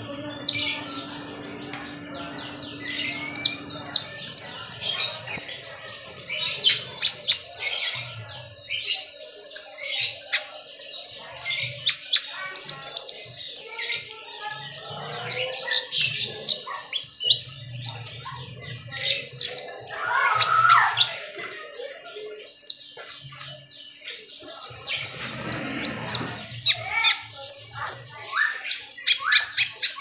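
Caged sunbird singing non-stop: a rapid, high twittering of thin chirps and short sweeps, tumbling one after another with only brief gaps.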